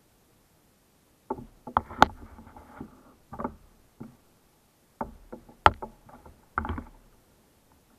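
Sharp knocks and clattering bumps on a plastic fishing kayak, coming in several clusters with dull low thuds among them, the two loudest cracks about two seconds in and near six seconds.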